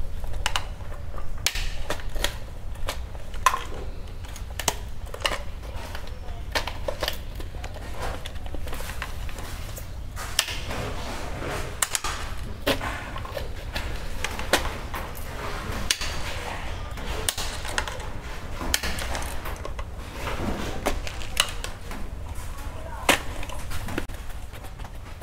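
Irregular clicks, knocks and rustles of plastic and wire as circuit breakers and their cables are pushed and seated into a wall-mounted distribution board box, with a screwdriver worked among the wires.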